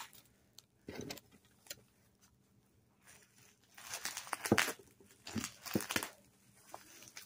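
Plastic bubble wrap crinkling and tearing as it is handled and cut open with a small plastic cutter. There are a few crackles about a second in, then a busier run of crinkling and scraping from about four to six seconds in.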